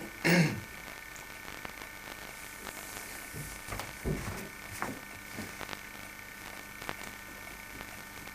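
Steady electrical hum and hiss of an old home-video tape recording. A brief spoken sound comes right at the start, and a few soft knocks fall around the middle.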